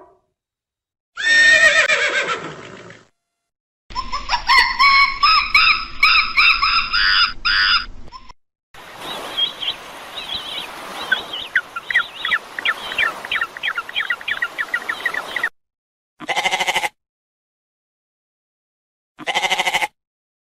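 A run of separate animal calls edited one after another, with silent gaps between. Two pitched calls in the first eight seconds are followed by about seven seconds of African penguins calling, with many short chirps over a noisy bed. Near the end come two short goat bleats.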